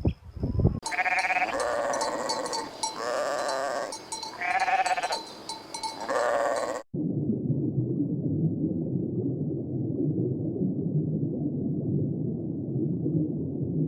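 Bleating livestock, about four drawn-out calls. A little before halfway it cuts off abruptly to a steady low rumbling noise.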